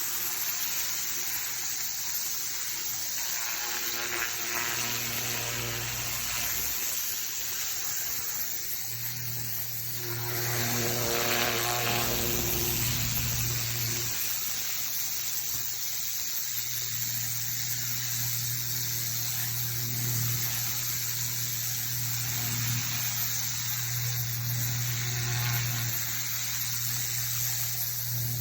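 Pressure washer running, a steady motor hum under the hiss of the high-pressure water jet, swelling slightly about ten seconds in.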